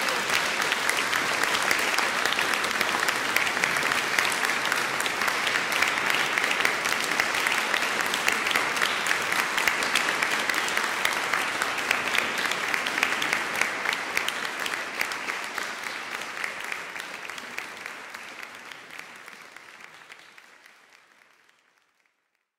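Audience applauding, a dense steady clapping that fades away over the last several seconds.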